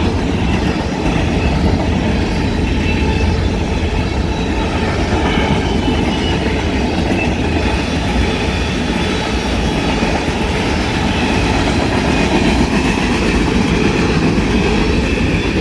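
Union Pacific local freight train passing close by: a steady, loud rumble of wheels rolling on the rails.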